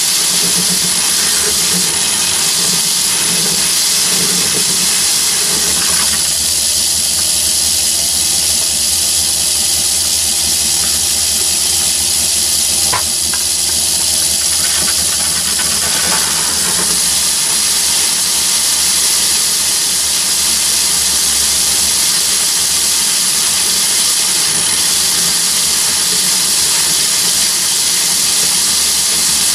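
Myford lathe running while a large twist drill in the tailstock bores into a spinning steel workpiece. It makes a steady hiss of cutting and machine noise over a low hum, with a thin high whine.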